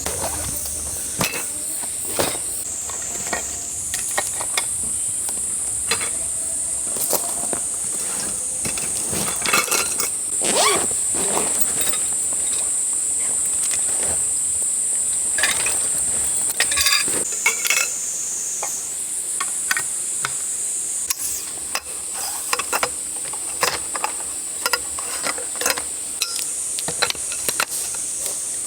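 Insects shrilling steadily in a high, even band, with many scattered clinks and knocks of dishes and camp gear being handled.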